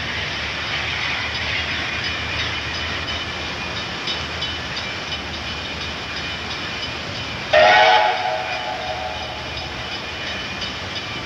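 A steam locomotive's whistle gives one short blast about seven and a half seconds in, over steady background noise. The blast is sudden and fades away within a second or so.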